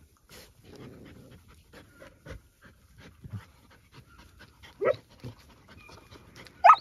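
Dogs panting, with a short, sharp high yip about five seconds in and a louder one right at the end.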